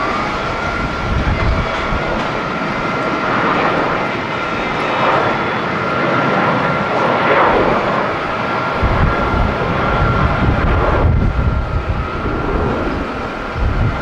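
Boeing 737-800's CFM56 jet engines at takeoff power as the airliner rolls, lifts off and climbs away: a steady roar with a high whine over it, and low buffeting growing heavier from about nine seconds in.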